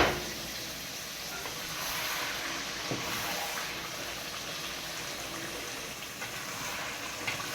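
A pot of tomato stew simmering on the stove: a steady hiss, with a couple of faint ticks.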